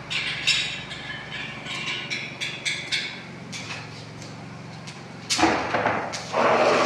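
Irregular sharp taps and knocks of a hammer striking metal, over a steady low hum. About five and a half seconds in, a louder, rougher noise comes in for a second or so.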